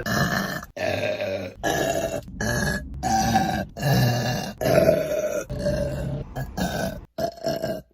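A woman burping loudly, about ten short burps one after another, each cut off abruptly where the clips are spliced together.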